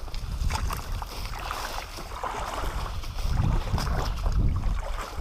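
Boots wading through creek water, splashing and sloshing unevenly step after step, with wind rumble on the microphone.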